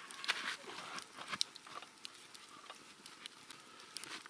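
Faint, scattered crackles, clicks and small knocks: a small log campfire crackling while the wooden pole of a pot-hanging cooking stand is handled and set into its notch.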